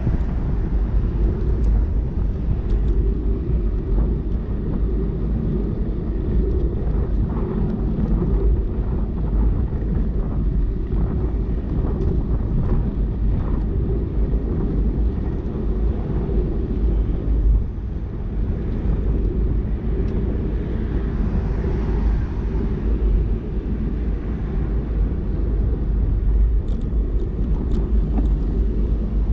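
Steady low rumble of wind and road noise on a GoPro riding on a moving bicycle, with a few faint clicks near the end.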